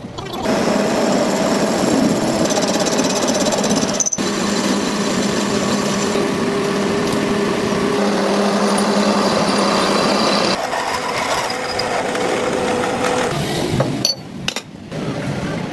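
Shop power tools working on a steel flange yoke, a steady, dense mechanical noise with a low hum. It changes abruptly a few times.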